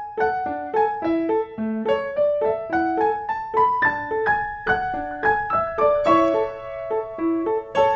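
Background music: a light, bouncy piano tune played note by note, several notes a second.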